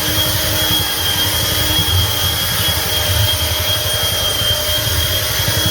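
Electric floor buffer screening (light-sanding) a finished hardwood floor, running steadily with a high whine over a low, pulsing drone.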